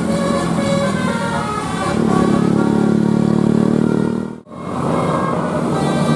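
Bus 'telolet basuri' multi-tone air horn playing a tune of short stepped notes over a steady engine drone. The sound cuts out suddenly about four and a half seconds in, then the horn tune and engine resume.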